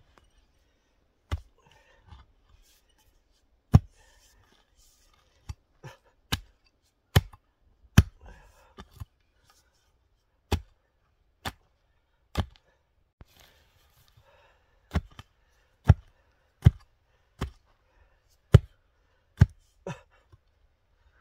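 Mattock blade chopping into rooty forest soil: about twenty sharp strikes, unevenly spaced roughly a second apart, as it cuts through roots.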